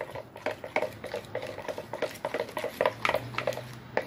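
A utensil clicking and scraping against a bowl in quick, uneven strokes as a slime mixture of glue and liquid soap is stirred.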